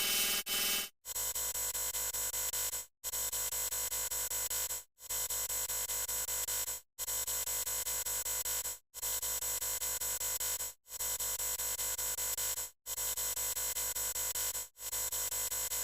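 Harsh, distorted electronic synthesizer sound effect, a dense buzz of many stacked tones. It repeats in blocks of about two seconds, each broken off by a brief silence.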